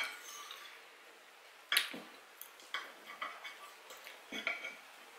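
Metal fork clinking against a plate while twirling and picking up fried noodles: one sharp clink a little under two seconds in, then a run of lighter clicks.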